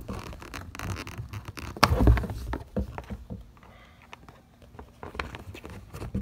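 A hex key and square metal nut clicking and scraping against the plastic rear deck panel as the old nut is pushed out of its holder. A louder knock comes about two seconds in, then lighter scattered ticks.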